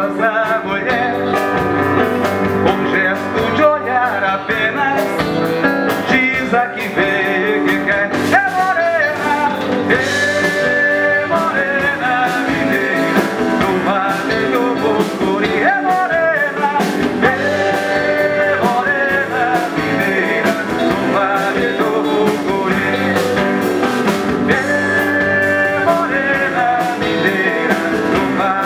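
A male singer singing a song over a live band, accompanied by acoustic guitar and electric bass.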